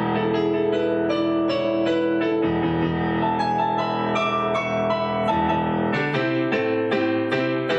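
Instrumental introduction of a song played on electric piano or keyboard: a steady run of quick notes over held chords.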